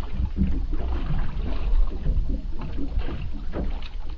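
Wind rumbling on the microphone and water slapping against the hull of a small boat drifting at sea, with a few light knocks.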